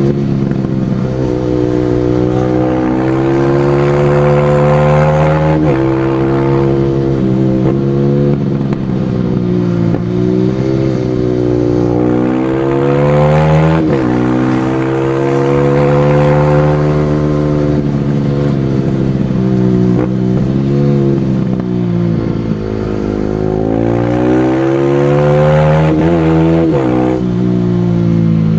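Supermoto motorcycle engine ridden hard. It revs up and backs off several times, its pitch climbing and then dropping sharply at each shift or throttle roll-off.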